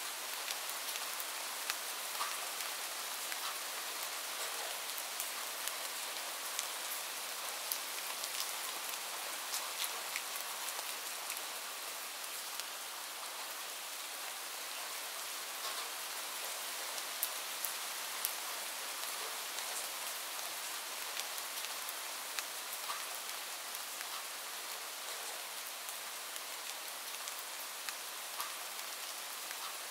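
Steady rain falling: an even wash of sound dotted with many small, sharp drop taps.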